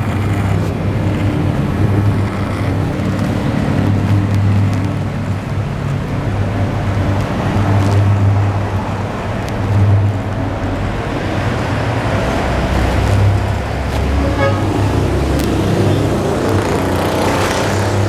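Street traffic: vehicle engines running and passing, swelling and fading, with a short horn toot.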